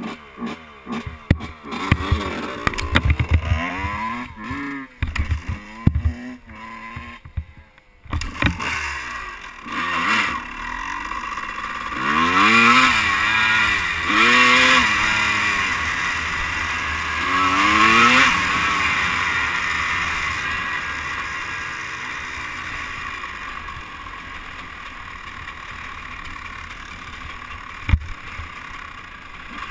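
Two-stroke dirt bike engine on the move: choppy throttle blips at first, then revs rising again and again as it accelerates up through the gears, settling to a steadier run later. A single sharp knock near the end.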